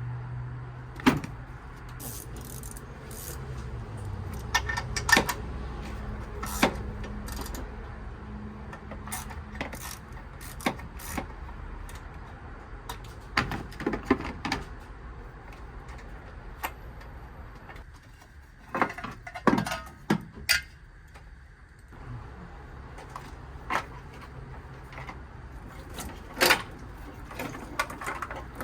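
Scattered metallic clinks and taps, like tools and small parts being handled, over a steady low hum.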